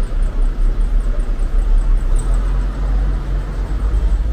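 Street traffic: a steady low rumble of motor vehicles.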